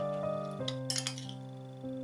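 Background music of sustained keyboard chords. Over it, a metal spoon clinks against the dishes: once about two-thirds of a second in, then a few quick clinks around one second in, as chopped cherries are scooped into a glass.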